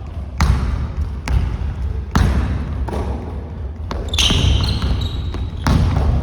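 Basketball bouncing on a gym floor during one-on-one play: a handful of sharp, irregularly spaced bounces, with a brief high squeak about four seconds in.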